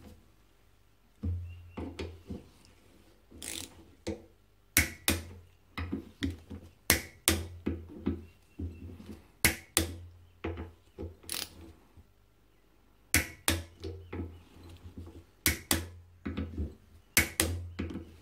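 A torque wrench set to 25 newton metres tightening the M8 bolts that join the two halves of a Yamaha TDR250 front brake caliper, evenly one after another. It makes sharp metallic clicks, often two close together, every second or two, with tool-handling noise between them.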